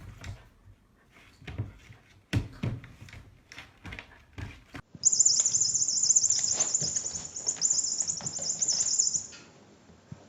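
A few scattered knocks and taps, then about four seconds of loud, dense, high-pitched chirping that cuts off suddenly.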